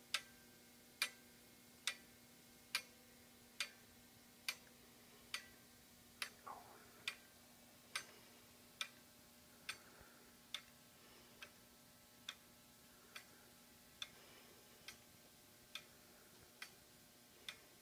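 Wooden-geared clockwork mechanism ticking steadily, a little more than once a second, the ticks growing fainter in the second half.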